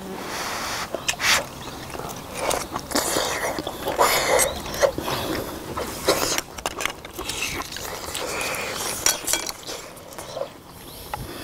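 Close-up eating sounds of seafood: sucking and slurping meat from sea-snail shells and chewing shrimp, with irregular wet smacks and sharp clicks.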